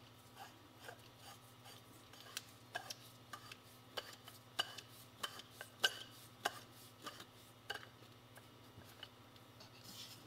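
A string of faint, irregular light metallic clicks and rubs as the fork nut is turned by hand onto the Yamaha YL1 front fork tube, the clicks loudest about halfway through.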